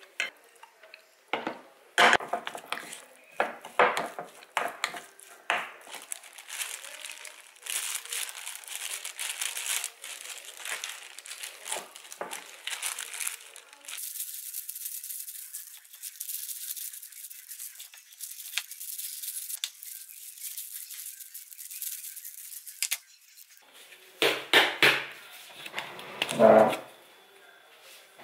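A wooden spoon stirring a rice mixture and knocking against a ceramic bowl, then a long stretch of plastic glove crinkling and rustling as the mixture is pressed into rice balls by hand. A few louder knocks near the end.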